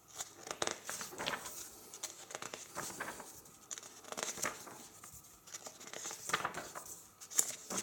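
Pages of a large hardcover book being turned by hand: paper rustling and crinkling, with a run of short, sharp rustles and ticks as the page is lifted and smoothed flat.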